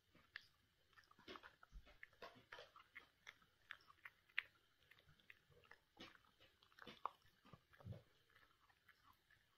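A puppy chewing and mouthing at something on the carpet: faint, irregular wet clicks and smacks, several a second.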